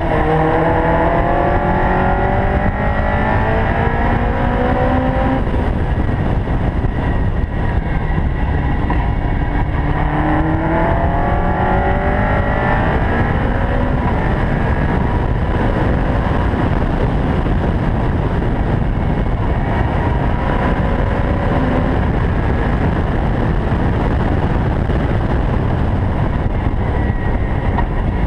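Caterham R500's four-cylinder engine pulling hard at speed, its pitch climbing steadily for several seconds near the start and again around ten seconds in, then running on at high revs under a heavy rush of noise.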